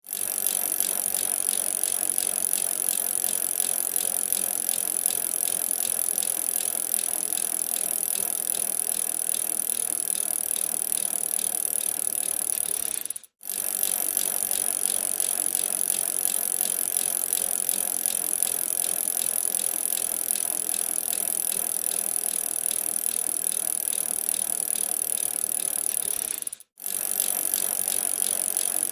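Bicycle in motion with a rapid ratcheting tick of the freewheel and chain over a steady rolling rattle. The sound cuts out briefly twice, about 13 seconds apart, where the recording loops.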